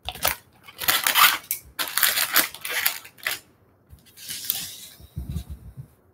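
Wrapped Topps trading card packs rustling and crinkling in several bursts as they are handled and stacked on a table, with a few soft low knocks near the end as packs are set down.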